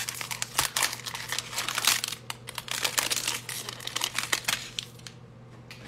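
Foil wrapper of a 2020 Playoff football card fat pack being torn open and crinkled by hand, a dense run of crackles that dies down near the end.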